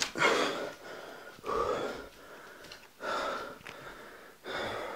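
A person breathing heavily and audibly, four breaths about a second and a half apart.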